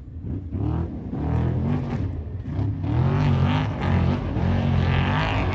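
An off-road race truck's engine revving, its pitch rising and falling as the throttle works, growing louder over the first few seconds as it approaches.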